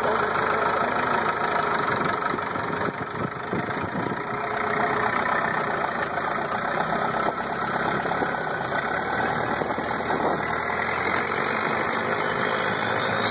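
Long-tail boat engine running steadily as the boat travels along the river, heard from aboard.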